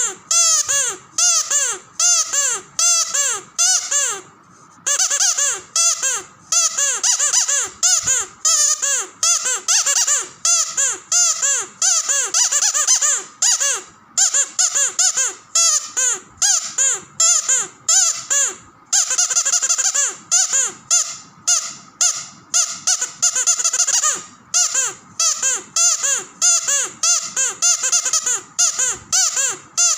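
Squeaky dog toy squeezed over and over: a fast string of short squeaks, a few a second, each one bending in pitch, with a brief pause about four seconds in.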